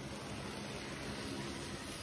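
Hornby OO gauge model Maunsell S15 locomotive and its goods wagons running past on the track: a steady electric motor hum with wheel noise on the rails.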